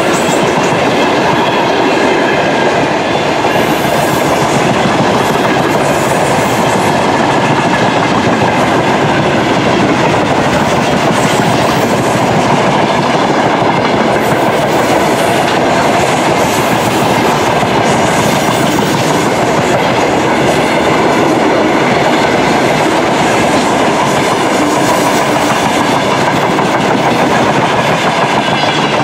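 Long freight train of open box wagons rolling past close by: a steady, loud rumble and clatter of steel wheels on the rails.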